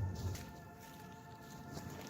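Quiet background music with sustained notes; a low bass part drops out about half a second in.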